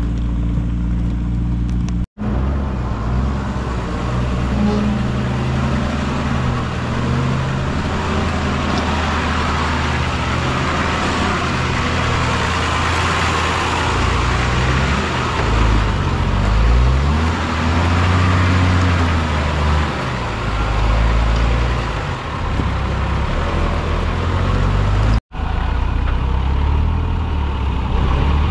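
Four-wheel-drive vehicle's engine running under load, its revs rising and falling, with a steady rushing noise over it. The sound cuts out for an instant twice: about two seconds in and near the end.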